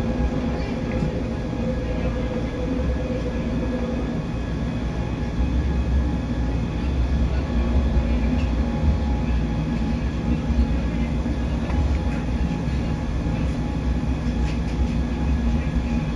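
Stuttgart rack railway railcar running downhill on its rack track: a steady rumble with a faint hum through it.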